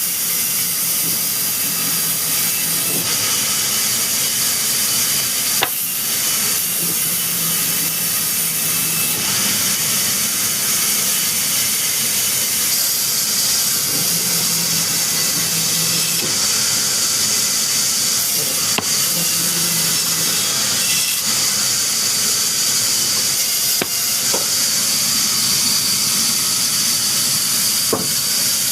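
Loud, steady hissing noise with a low hum that comes and goes every few seconds, and a few sharp clicks.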